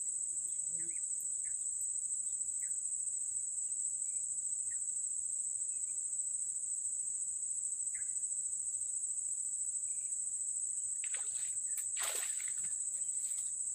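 Crickets trilling as one steady high-pitched buzz, with a few faint chirps over it. About eleven to thirteen seconds in, a short burst of scratchy noise rises over the buzz.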